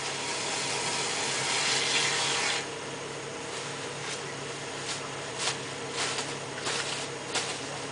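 A portable ventilation blower hums steadily under a rough scraping hiss that lasts about two and a half seconds and cuts off sharply, followed by a string of light knocks and clacks from hand work with tools and parts.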